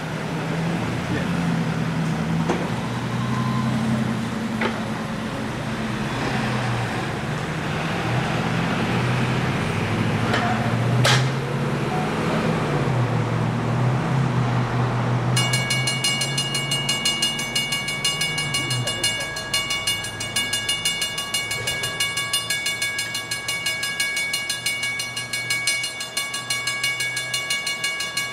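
Reading & Northern 2102, a 4-8-4 steam locomotive, working toward the listener from a distance, with people talking nearby for the first two thirds. About halfway through a steady high tone sets in, and near the end the sound pulses about three to four times a second as the exhaust beats come through.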